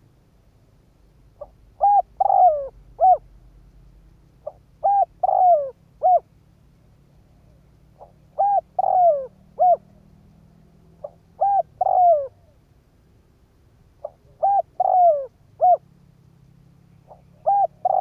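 Spotted dove (cu gáy) decoy bird giving its territorial cooing call six times, about every three seconds. Each phrase is a soft lead note and then three coos, the middle one longer and falling. It is a call used to provoke and draw in wild doves.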